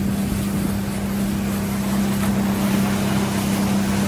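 A motorboat's 40 HP engine running steadily under way, a constant drone over the rush of water and wind.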